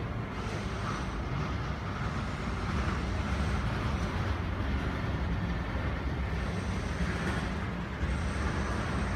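Jet airliner engines running across the airfield: a steady low rumble with a rushing hiss above it, getting a little louder about three seconds in.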